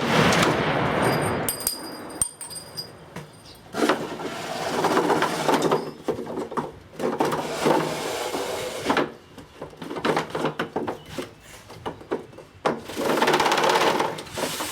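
A single shot from a 375 DCM magnum rifle fired with no muzzle brake, right at the start, its report echoing and fading over about two seconds. Later come three stretches of rustling noise, each a couple of seconds long.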